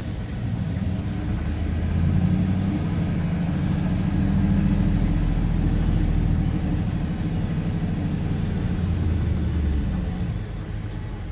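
1980 Chevy C30 rollback's swapped-in 8.1-litre V8 pulling away under load. The engine note builds over the first few seconds, holds steady, then eases off near the end.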